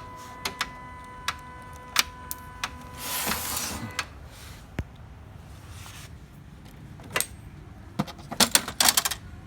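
HP Color LaserJet laser printer being switched off and handled: a steady whining tone for the first four seconds with scattered plastic clicks, then a quick run of loud plastic clicks and knocks near the end.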